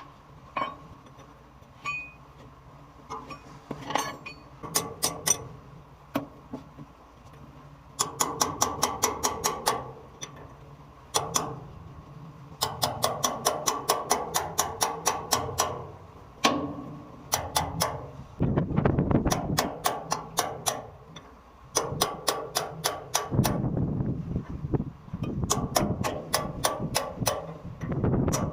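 Rapid metal-on-metal hammering in repeated bursts, about eight quick strikes a second, each run lasting one to four seconds, during work on a hydrant.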